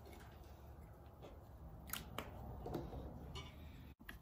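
Quiet garage room tone with a low hum, with a few faint light clicks and knocks about two seconds in from handling the cast-iron cylinder head on the wooden workbench. The sound drops out completely for an instant near the end.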